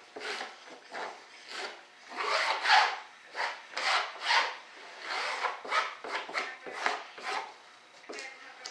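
Gloved hand rubbing fiberglass cloth into tacky resin in the corners of a mold: a run of irregular scrubbing strokes, about two a second.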